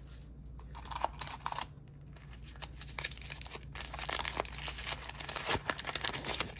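Paper wrapper being crumpled and torn off a small toy piece by hand: irregular crinkling and crackling rustles, busier in the second half.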